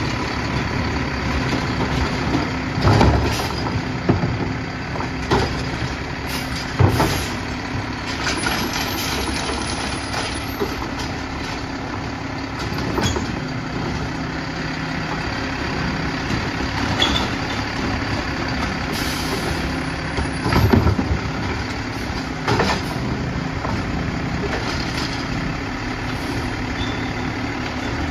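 Mack LR garbage truck's engine idling steadily while its Heil Rapid Rail automated side-loader arm dumps a cart into the hopper, lowers it back to the curb and retracts. Hydraulic whine, with a series of metal clunks and bangs from the arm and cart, loudest about 3 and 7 seconds in and again about 21 seconds in.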